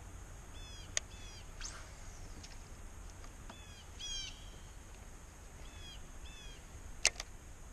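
Birds chirping in short runs of quick, repeated calls over a low steady rumble. There are two sharp clicks, one about a second in and a louder one near the end.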